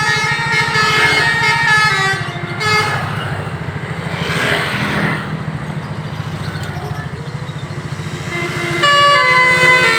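Basuri 'telolet' bus air horn, a set of trumpets playing a tune of stepping notes. It breaks off with a rush of air in the middle, then starts again loudly near the end, over the steady low throb of the bus's running engine.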